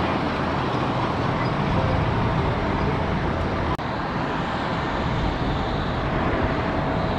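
Boeing 777 Freighter's GE90 turbofan engines at taxi power: a steady jet rush with a low rumble and a thin steady whine.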